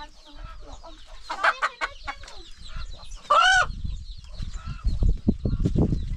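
Chickens clucking, with one loud squawk about three and a half seconds in, followed by a run of dull low thumps.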